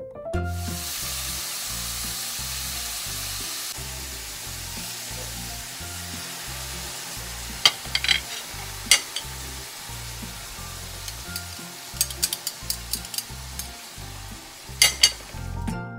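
Shrimp sizzling in a hot stainless-steel sauté pan, loudest in the first few seconds, with a utensil clinking and scraping against the pan several times during stirring. Background music with a steady bass runs underneath.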